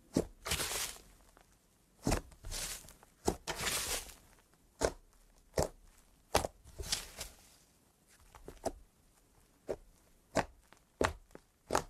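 Thick white slime being pressed and folded by fingers: sharp, irregular pops as trapped air pockets burst, mixed with several longer crackling squelches. The pops come more often near the end.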